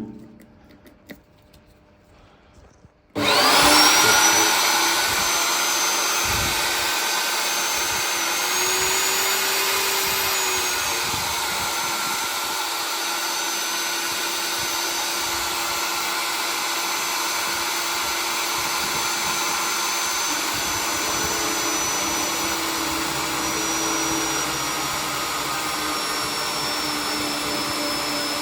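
Magnetic drill's electric motor, switched on about three seconds in after a few clicks, then running steadily with a high whine whose pitch wavers slightly as its 35 mm annular cutter cuts.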